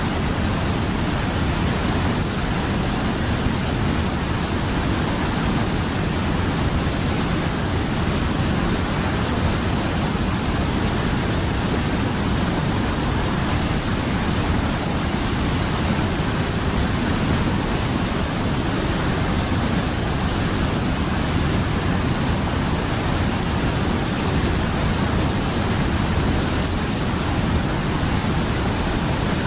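Mountain river flowing, a steady full rush of water.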